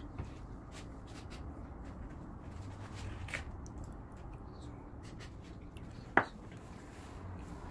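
A trowel scraping and clicking in a bucket and spreading mortar, giving short scattered scrapes and clicks. There is one sharp, loud tap a little after six seconds in.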